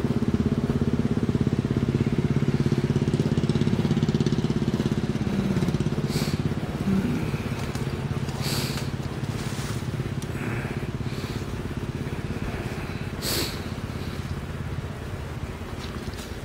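An engine idling steadily with an even, fast pulse, growing gradually fainter. A few short sharp noises stand out about six, eight and a half and thirteen seconds in.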